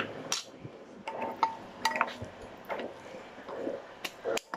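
Scattered light clinks and knocks of tableware against a plate, about half a dozen spread through, a few with a short ring.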